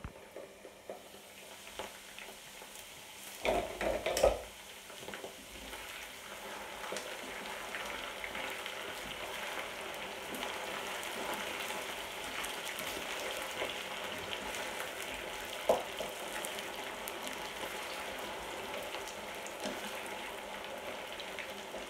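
Potato chunks frying in oil in a frying pan, a steady sizzle that grows louder after the first few seconds, as a wooden spatula turns them. A brief clatter of pan and glass lid comes about four seconds in.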